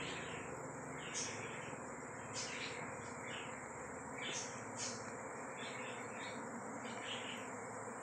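Honeybee swarm in flight, thousands of bees making a dense steady hum, with short higher swells every second or so.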